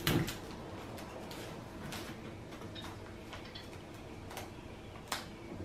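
A piece of clear tape torn from a desk tape dispenser at the start. Then a few light, scattered clicks and crinkles as paper is handled and taped, one sharper click near the end.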